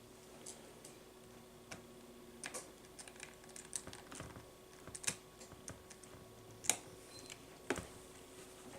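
Faint, irregular light clicks and taps of a small screwdriver and hands working on a laptop's screen assembly while the replacement LCD panel is screwed into place. The sharpest clicks come past the middle and near the end.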